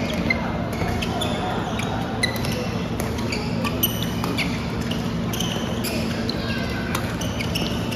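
Badminton doubles rally in a large hall: rackets striking the shuttlecock and shoes squeaking on the court mat, heard as many short sharp sounds and squeaks over a steady murmur of background chatter.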